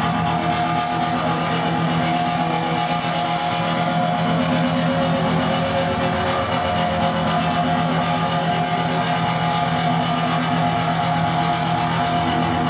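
Guitar-led live band music playing steadily, with long held, ringing notes.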